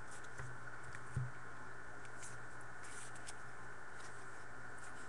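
Trading cards being flipped through by hand: faint light rustles and slides of card stock, with two soft thumps about half a second and a second in, over a steady low hum.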